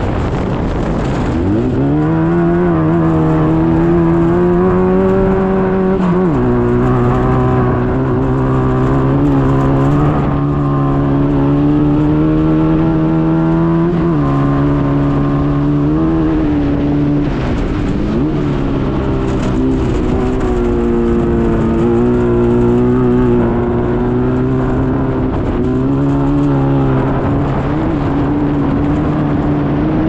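Race car engine heard from on board at racing speed. It rises in pitch about a second and a half in, then holds steady with abrupt drops and climbs in pitch as the car shifts and gets on and off the throttle through the turns.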